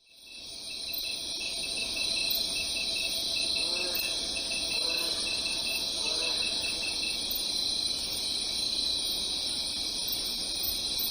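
A dense, steady chorus of crickets or similar insects, fading in over the first second, with a rapid pulsing trill under the main shrill band. A few faint, lower calls sound about four to seven seconds in.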